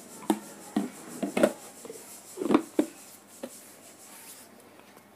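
Plastic lid of an insulated casserole being handled and fitted onto its body: about six light clacks and knocks of hard plastic against the rim and the table in the first three and a half seconds, the loudest about two and a half seconds in.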